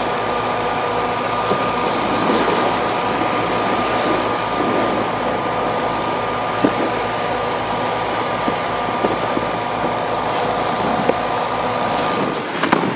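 Steady mechanical drone with several constant tones over a low, even pulsing, stopping shortly before the end.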